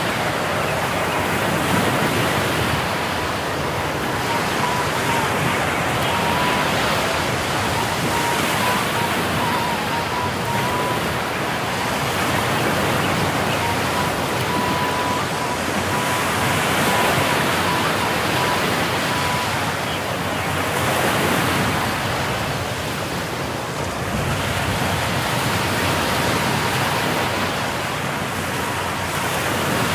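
Ocean surf breaking on a sandy beach: a steady rushing noise that swells and eases every few seconds.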